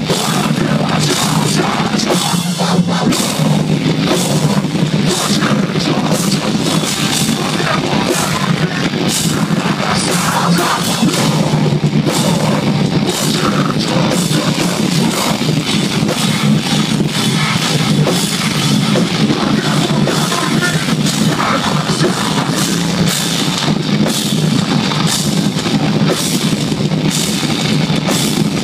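Metalcore band playing live at full volume: distorted electric guitars and bass, drum kit with cymbals, and screamed vocals, in one dense unbroken wall of sound. Recorded on a phone microphone, so it is saturated and has little deep bass.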